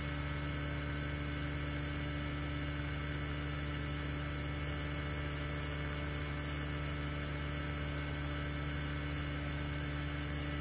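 Steady electrical mains hum with a stack of constant tones and a layer of hiss, unchanging throughout: noise picked up by the recording setup.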